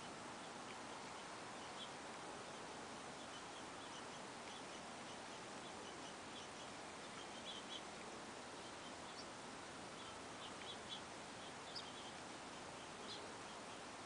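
Faint bird chirps, short and scattered, over a steady hiss, a few a little louder in the second half.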